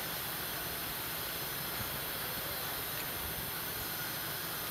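Steady outdoor background hiss, brightest in the highest pitches, with no distinct events.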